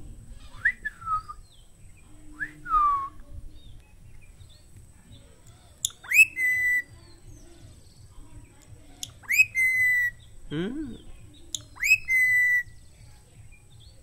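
Whistling between a caged Psittacula parakeet and the person beside its cage. First come two falling whistles, then three loud whistles about three seconds apart, each sweeping up and settling on a held note.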